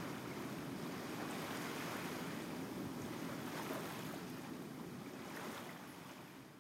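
Sea waves washing ashore, a steady rushing surf that fades out near the end.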